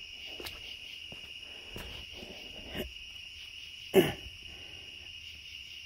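Steady chorus of crickets, one unbroken high trill, with a single brief loud thump about four seconds in.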